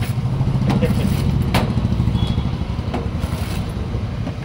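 A pizza-cutter wheel rolling and pressing through toasted bread and omelette on a plastic chopping board, with a few sharp clicks against the board. Under it is a loud, steady low mechanical rumble.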